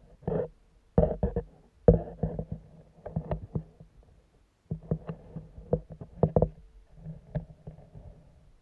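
Irregular knocks, bumps and splashy handling noise from an underwater camera being lowered through the ice hole into the water, heard from inside its housing.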